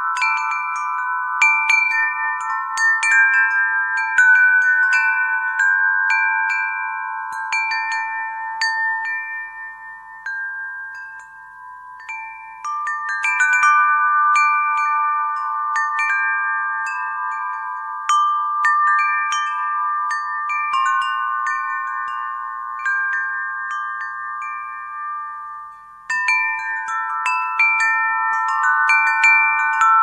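Wind chimes ringing: many overlapping struck tones, each ringing on for a second or more. The strikes thin out and fade around ten to twelve seconds in, pick up again, then break off briefly about twenty-six seconds in before resuming.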